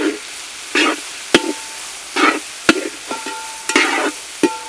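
Metal spatula stirring shallots, coconut slices and green chillies as they fry in oil in a large metal pan. Sharp clinks of the spatula striking the pan roughly once a second, some with a brief metallic ring, alternate with scraping swishes of the shallots being turned, over a steady sizzle.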